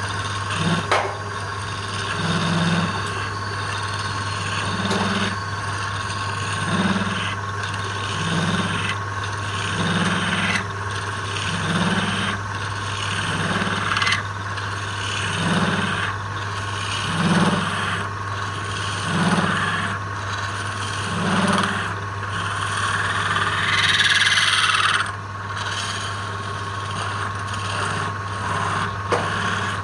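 Wood lathe running with a steady hum while a tool rubs and scrapes against the spinning wood, with a low thump about every two seconds. The scraping grows louder for a couple of seconds about three-quarters through.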